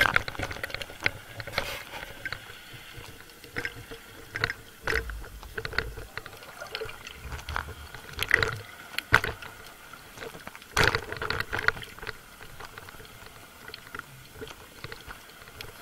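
Underwater sound picked up by a speargun-mounted camera: a string of irregular clicks and knocks over a faint watery hiss, from the speargun and its shooting line being handled as the spearfisher hauls in a speared fish.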